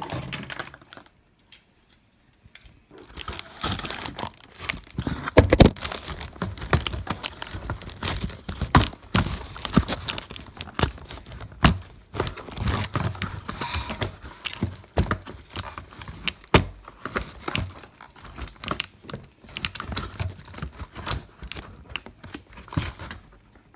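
Cardboard and plastic packaging being handled and pulled loose from the box: irregular crunching and crinkling with many sharp clicks and knocks, starting after a brief quiet moment near the beginning.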